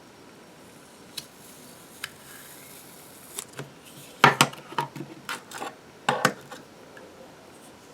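Light metal clicks from a Zippo lighter being handled, a few scattered at first, then a run of louder clacks and knocks about four to six seconds in.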